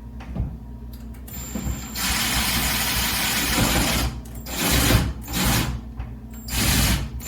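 A power drill/driver runs, driving the machine screw that joins the two halves of an interior doorknob. It gives one steady run of about two seconds, then a few short bursts as the screw seats.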